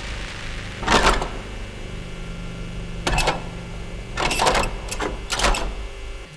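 Rusty metal parts of a vintage farm machine being worked: four short rasping, clattering bursts of metal on metal, spaced about a second apart.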